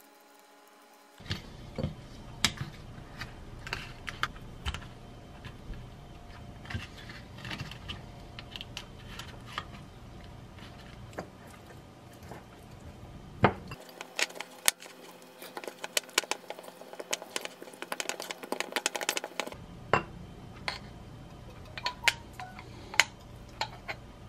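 Metal fork clinking and scraping against a glass bowl while mashing hard-boiled eggs: a run of quick, irregular clicks, densest a little past the middle.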